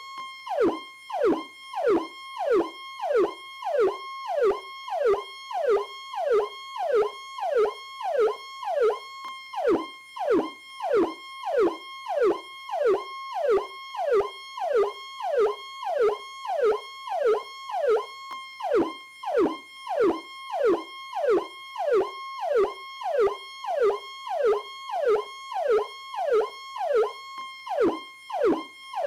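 American police Powercall electronic siren sounding continuously: a steady high tone cut by a quick falling sweep that repeats a little more than once a second.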